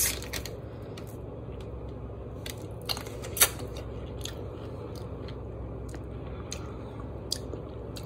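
A person chewing food close to the microphone: scattered soft mouth clicks and crunches, with two louder ones about three seconds in.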